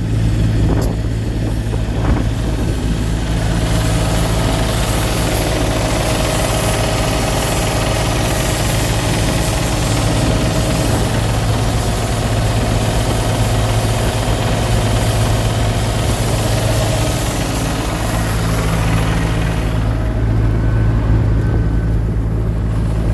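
Diesel truck engine running steadily after its fuel gelled in the extreme cold, with a rushing hiss over it that drops away near the end.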